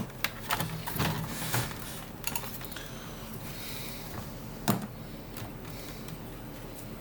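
Light clicks and knocks from the plastic parts of a TRS-80 Model 100 laptop being handled during disassembly. Several come in quick succession over the first two seconds or so, then one sharper click about four and a half seconds in.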